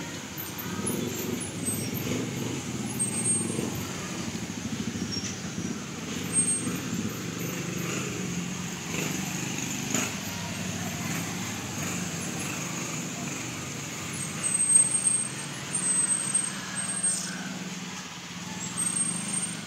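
Steady low rumble of road traffic, with a few louder bumps about three-quarters of the way in.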